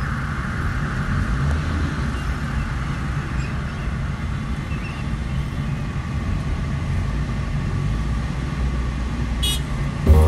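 Road traffic heard from inside a car creeping through heavy traffic: a steady low engine rumble, with a brief high-pitched beep near the end.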